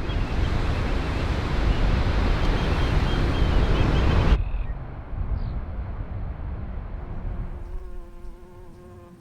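A steady outdoor rushing noise with faint bird chirps that cuts off suddenly about four seconds in. Later an insect buzzes close by, in short stop-start bursts.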